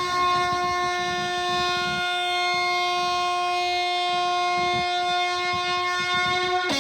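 A long held horn-like note, steady in pitch, dropping to a lower note near the end, over a rough low rumble: part of music played through a big loudspeaker.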